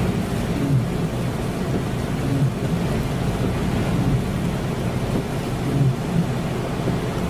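Storm wind buffeting the microphone as a steady low rumble, with rain in the background.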